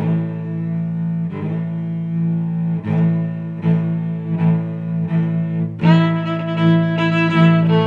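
Music with low, sustained bowed-string notes that change every second or so; a brighter, higher part joins about six seconds in.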